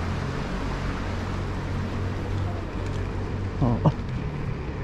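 Electric scooter riding along at speed: steady wind and road rush with a low hum. A short voice-like call cuts in about four seconds in.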